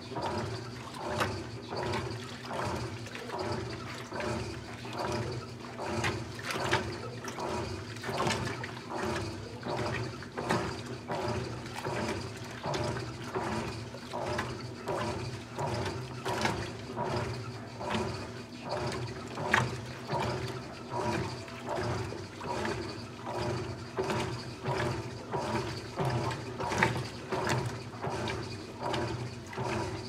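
GE top-loading washing machine agitating a load in water: the agitator churns the water in rhythmic sloshing surges over a steady motor hum.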